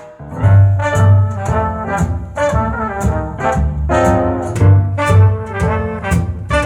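Swing-jazz band intro led by brass, over a walking bass and a steady drum beat, played back through a hi-fi loudspeaker and picked up by a microphone in the room.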